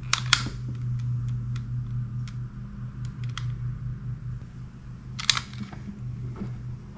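Butane torch lighter clicking as it is fired to shrink heat-shrink tubing over crimped wire connections: sharp clicks near the start and about five seconds in, with fainter ticks between, over a steady low hum.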